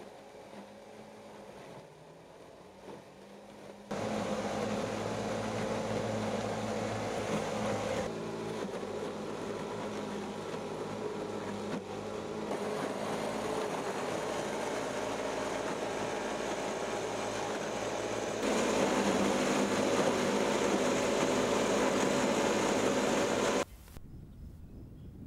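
Motor-driven chopping machine grinding water hyacinth into feed for a biogas digester, running steadily with a low hum. It is quieter at first, louder from about four seconds in, and drops away abruptly near the end.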